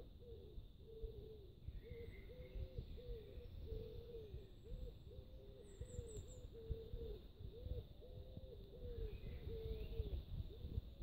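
A bird calling in a steady run of short low notes, about two a second, with a few faint high chirps of small birds and low rumble from the handheld microphone.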